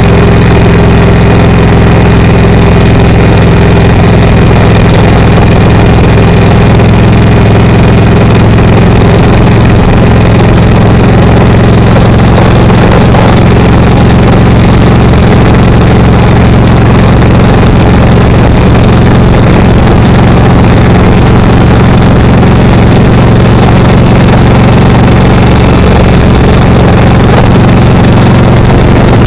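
A car driving at steady speed: an even engine hum and road noise that hold constant, with no change in pitch.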